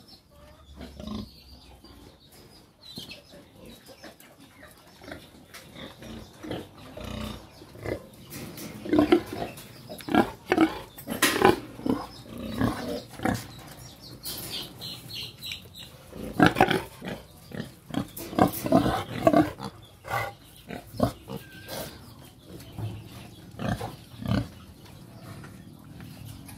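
Pigs grunting in a run of short calls, sparse at first, growing louder and more frequent about eight seconds in and again around sixteen to twenty seconds, then thinning out.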